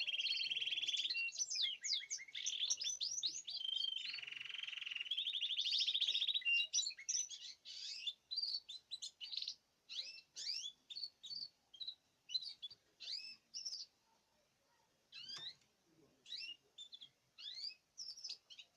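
Domestic canary singing: fast rolling trills and warbled phrases for the first several seconds, then from about seven seconds in a looser series of short, separate chirps.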